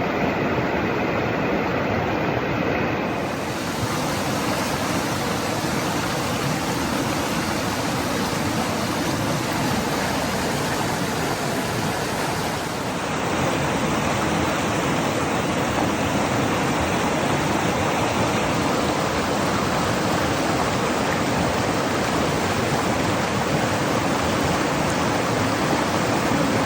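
Fast mountain river rushing over stones, a steady even roar of water.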